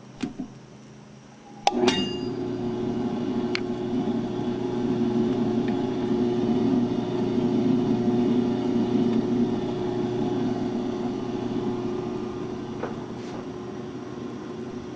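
Hobart A200 20-quart commercial mixer switched on with a metallic clack about two seconds in, then its motor and gear drive running with a steady hum.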